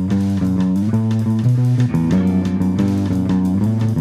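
Instrumental noise rock played live: a guitar riff of low held notes that shift in pitch, driven by fast, steady drum kit hits.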